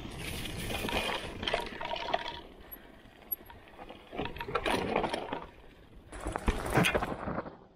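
Trek Roscoe 7 hardtail mountain bike being ridden down a rough trail: three surges of tyre and rushing noise full of rattles and knocks from the bike over roots and rocks, easing off near the end.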